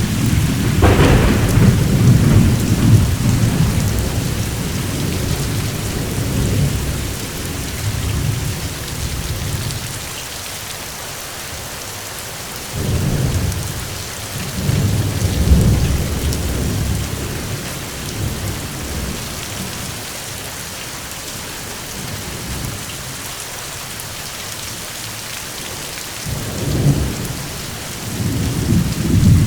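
Steady rain falling with rolling thunder: low rumbles swell at the start, again about halfway through and near the end, with only the rain hiss in between.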